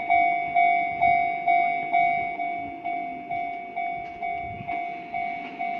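Japanese railway level-crossing warning bell sounding its steady 'kan-kan' alarm, about two rings a second, each ring sharp and then fading: the crossing is signalling that an Enoden train is approaching.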